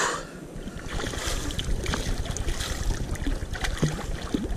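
A hooked fish thrashing at the surface beside a kayak: a short loud splash at the start, then continued crackling splashes and water noise, with wind rumbling on the microphone.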